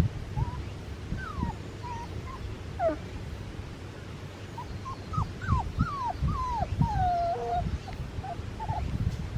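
English golden retriever puppies making many short, high calls, several sliding down in pitch, with a cluster of them in the second half. Irregular low thumps run underneath.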